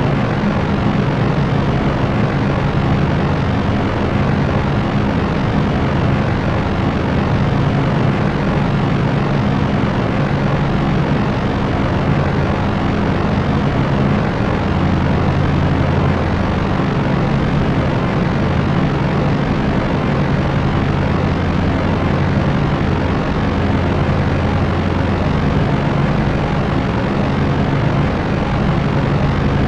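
Steady drone of a propeller aircraft's engines and propellers: an even hiss with a low hum underneath that swells and fades slightly.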